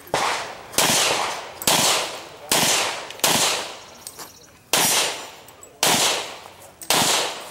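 Eight handgun shots fired in a string, roughly one a second with a longer gap about halfway, each crack followed by a short fading echo.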